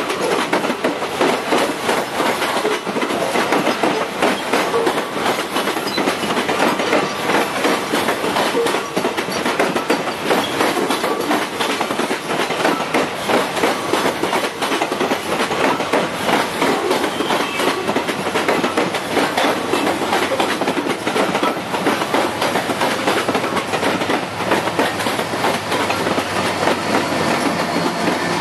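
Freight train of hopper cars rolling past close by, the wheels clattering steadily and rapidly over the rail joints.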